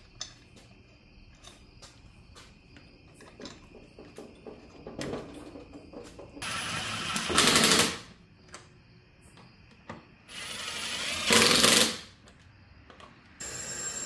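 Cordless impact wrench run twice on a Jeep Wrangler wheel's lug nuts, each run a couple of seconds long and rising to a louder hammering near its end as the nut seats against the wheel. Before that, light clicks of lug nuts being threaded on by hand.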